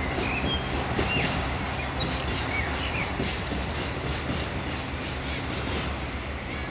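Diesel train's engine running with a steady low hum, with a few short high chirps about a second or two in.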